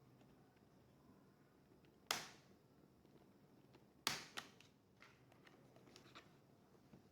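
A few sharp clicks of hard laptop parts being handled on a work surface. Two loud clicks come about two seconds apart, a quick second click follows the later one, and fainter ticks come after, over near-silent room tone.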